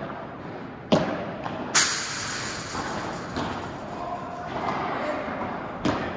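Padel rally: a sharp ball hit about a second in, a much louder crash just under two seconds in that rings on for about a second, and another hit near the end.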